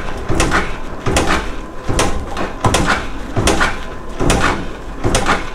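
A 125 cc single-cylinder motorcycle engine being cranked over with a compression gauge screwed into the spark-plug hole, a sharp mechanical stroke roughly every three-quarters of a second. It is a repeat compression test on a big-bore engine whose owner blames a worn piston ring for lost compression.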